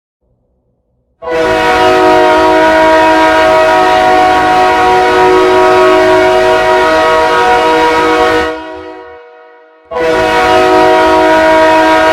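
Ice hockey goal horn, a multi-chime air horn of the train-horn type sounding one chord. A long blast starts just over a second in and fades out after about seven seconds; a second blast begins about ten seconds in.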